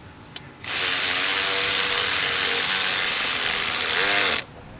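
A power tool runs steadily for about four seconds, starting abruptly and cutting off suddenly, with a brief rise and fall in pitch just before it stops.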